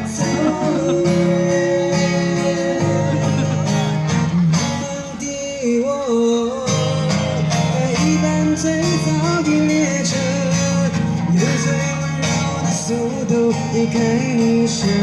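Live street band performing a song: a singer into a microphone, with strummed acoustic guitar accompaniment.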